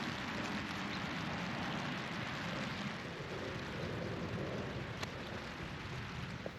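Steady light rain falling.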